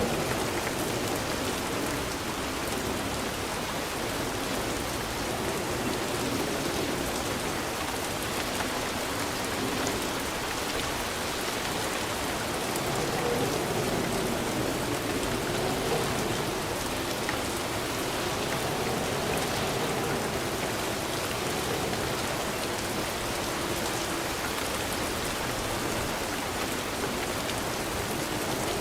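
Steady rain falling, an even hiss of drops that holds at one level without a break.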